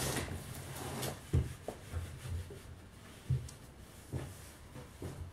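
Cloth rubbing over a wooden cedar chest as it is wiped down, with a few dull thumps and small knocks as the chest is handled.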